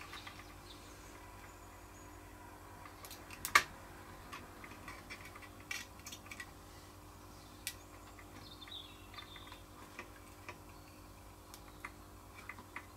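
Soldering iron tip pressing copper desoldering braid onto a circuit-board solder joint: faint scattered ticks and small clicks, with one sharper click about three and a half seconds in, over a faint steady hum.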